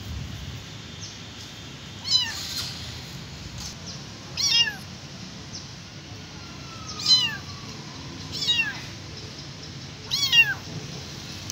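Tiny abandoned kitten meowing loudly: five high-pitched cries about two seconds apart, each falling in pitch at the end.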